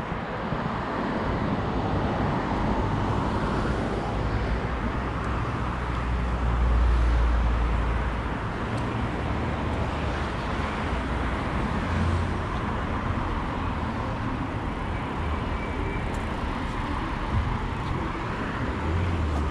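City road traffic: a steady wash of cars driving past, with low rumbles swelling about seven seconds in and again near the end.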